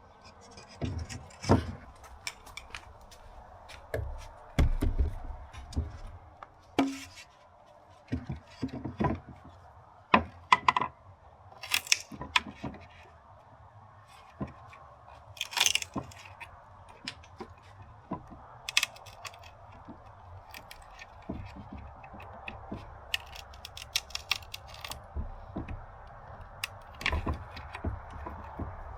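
Irregular light clicks, knocks and scrapes of hand work with tools and wooden ceiling panels, scattered through the whole stretch, with a few sharper knocks.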